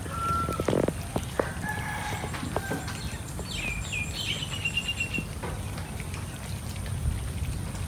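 A rooster crowing once around the middle: a few short falling notes that end in a long held note. Steady low background noise and small clicks run underneath.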